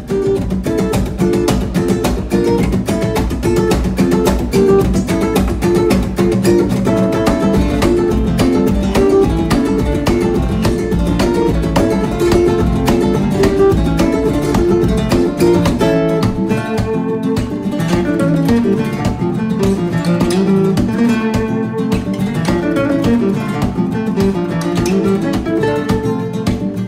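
Background music led by an acoustic guitar, with plucked notes and strums in a flamenco-like style.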